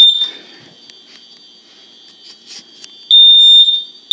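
Smoke alarm sounding: one short shrill beep at the start, then after about three seconds the loud high-pitched alarm tone comes back in long pulses.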